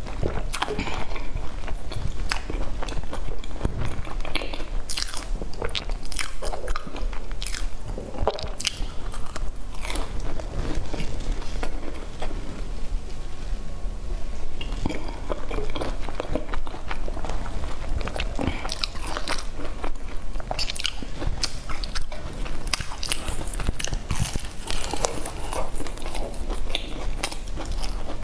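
Close-miked biting, crunching and chewing of a flaky baked sesame flatbread: many irregular crisp crackles as the crust breaks, thinning out for a few seconds about halfway through.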